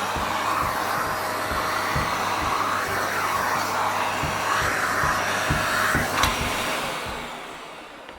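Household vacuum cleaner running with a steady whine. About six seconds in there is a sharp click, and then the motor runs down and stops.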